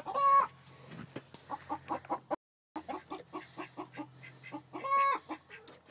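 Chickens clucking in a quick run of short notes, with two louder drawn-out calls, one right at the start and one about five seconds in. The sound cuts out completely for a moment about two and a half seconds in.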